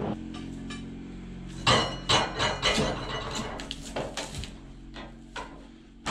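Sharp metal clanks and knocks as a cant hook is worked against a cedar log on a Wood-Mizer LT15 sawmill to roll it, a string of strikes from about a second and a half to four and a half seconds in. A low steady engine hum runs underneath and fades away.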